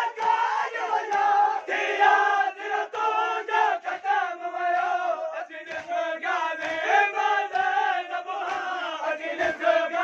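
A crowd of men chanting a Muharram lament (noha) loudly together, with rhythmic matam, hands striking their chests about two to three times a second.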